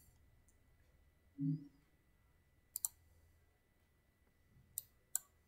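Computer mouse clicking: a quick double click about three seconds in, then two single clicks near the end. A brief low hum of a voice comes about a second and a half in.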